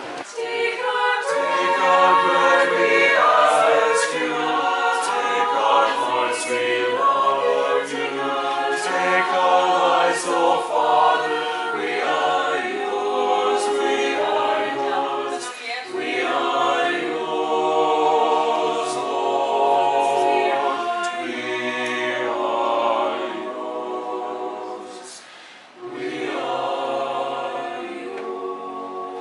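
Small mixed choir of men's and women's voices singing a cappella in harmony. The sound dips briefly about 25 seconds in, then the singing picks up again.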